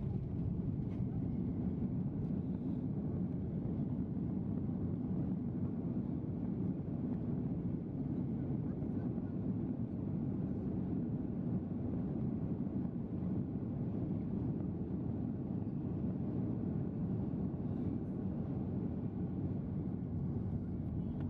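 Steady low rumble inside the cabin of an Airbus A330-300 rolling along the runway just after landing, with its spoilers raised: engine noise and the rumble of the wheels on the ground.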